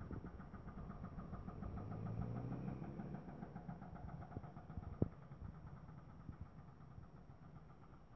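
Faint engine running in the distance: a low hum with a rapid pulsing note that swells a little and then fades away. A single sharp click about five seconds in.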